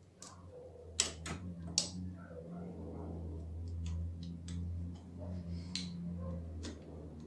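Light sharp clicks and taps of hands handling a motorcycle's metal exhaust silencer and its mounting, the loudest a few about one to two seconds in and more near the end, over a steady low hum.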